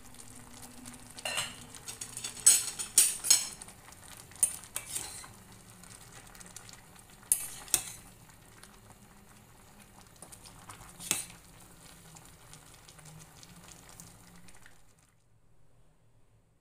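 A stainless steel pot of shrimp sour soup bubbling at the boil, with a metal spoon stirring the greens and clinking against the pot every few seconds. The sound cuts off about fifteen seconds in.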